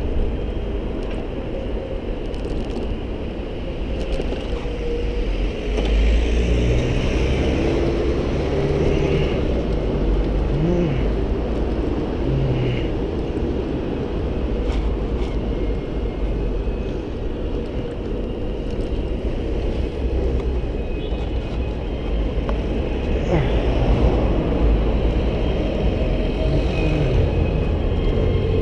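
Steady wind and road rumble on the microphone of a camera riding on a moving bicycle, with city traffic engines passing close by.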